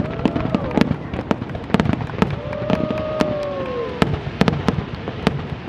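Aerial fireworks bursting overhead: a rapid, irregular series of sharp bangs, some in quick doubles.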